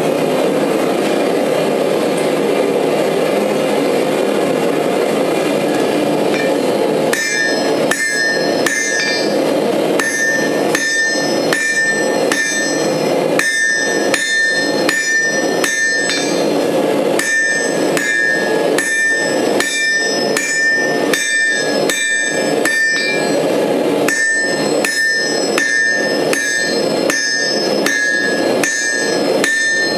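Hand hammer striking red-hot steel on an anvil while forging a graver: sharp blows about two a second, in runs with short pauses, each leaving a bright metallic ring from the anvil. A steady rushing noise runs underneath, and for the first seven seconds or so it is the only sound.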